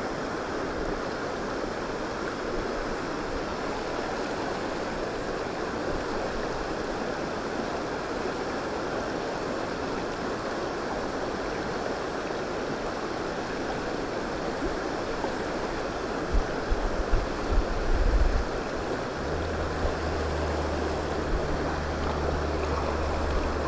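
Shallow stream running over stones: a steady rush of flowing water. Near the end a few low bumps and then a low steady hum join it.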